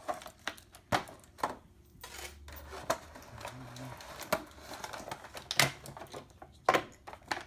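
Clear plastic toy packaging crinkling and clicking as an action figure is worked out of it, with several sharp knocks spread through.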